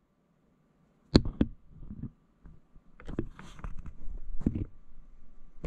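Handling noise from a small red dot sight held in the hands close to the microphone. Two sharp clicks come about a second in, followed by irregular rubbing and light knocks.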